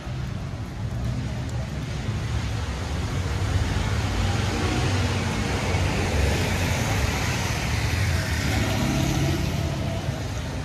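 Street traffic on a wet road: car engines rumbling and tyres hissing on the wet pavement, growing louder from about three seconds in and easing near the end.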